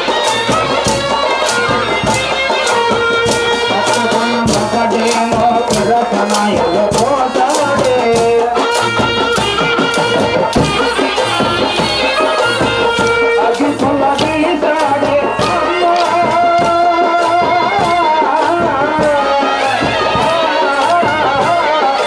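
Loud live folk music accompanying a kolatam stick dance: a steady fast rhythm of sharp percussive strikes under a wavering melody line.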